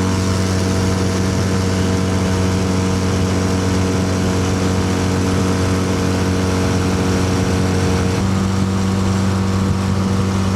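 15 HP four-stroke outboard motor running steadily and evenly, with no misfire yet. Its note shifts slightly about eight seconds in.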